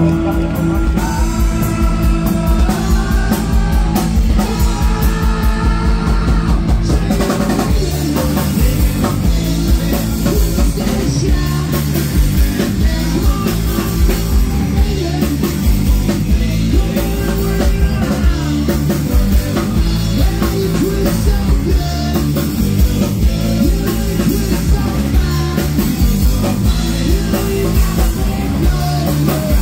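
Live rock band playing electric guitars, bass and drum kit, with a singer.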